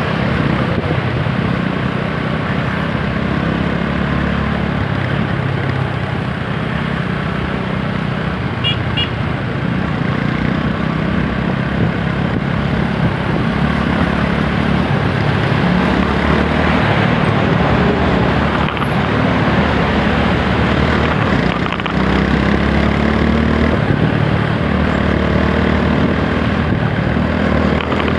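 TVS Apache 160 4V's single-cylinder engine running under way in traffic, its pitch shifting up and down with the throttle, over wind and road noise. A short high double beep sounds about nine seconds in.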